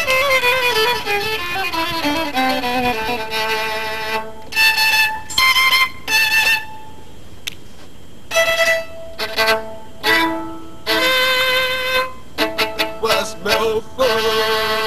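Instrumental jingle music carried by one melodic line. The line slides downward in pitch over the first three seconds, then breaks into short phrases with brief pauses between them, ending on a held, wavering note.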